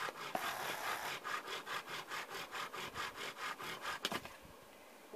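Bow drill being worked for friction fire: the wooden spindle grinds in the hearth board with rapid, even back-and-forth strokes of the bow, then stops about four seconds in. The friction sheds hot wood dust and raises a small glowing ember at the spindle tip.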